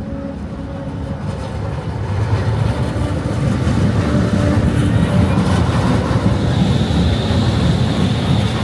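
Low-floor electric trams passing close by on street track: a steady rumble of wheels on the rails that grows louder from about two seconds in, with a thin high whine joining near the end.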